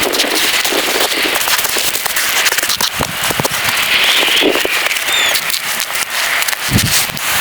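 Heavy rain mixed with snow pattering on a tent, a dense, irregular crackle of drops.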